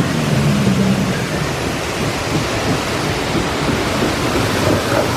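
Rushing, splashing water on a river rapids raft ride, a loud, steady roar of noise.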